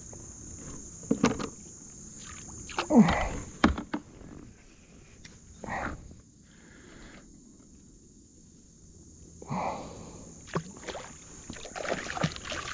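Scattered knocks and clatter from a landing net and rod being handled against a kayak, the loudest about three seconds in. A hooked catfish splashes at the surface near the end, all over a steady high-pitched insect drone.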